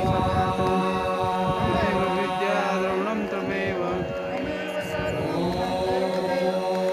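Devotional mantra chanting by a voice over a steady drone that is held throughout.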